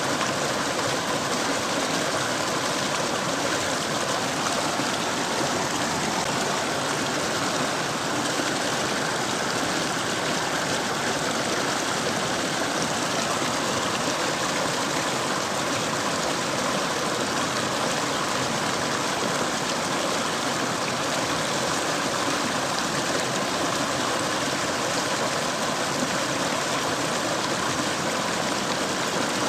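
Mountain stream flowing, a steady, unbroken rush of water.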